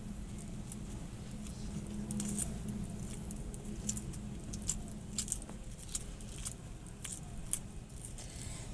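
Hard-boiled eggs being peeled by hand: faint, scattered crackles and small clicks of breaking shell, over a low steady hum.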